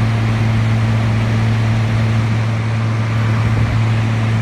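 GE 5010 BTU window air conditioner (model AHS05LX) running with its compressor and fan on: a steady low hum with a fainter higher hum above it, over the even rush of the fan. It is cooling well after months in storage.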